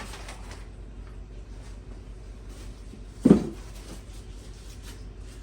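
Workbench handling noises: faint light clicks and rustling over a low shop hum, with one short, dull knock a little over three seconds in as a part or tool is set down.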